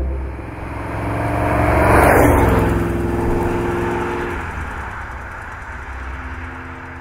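Maserati Khamsin's 4.9-litre V8 driving by: the engine and exhaust note grow louder to a peak about two seconds in, then fade steadily as the car pulls away down the road.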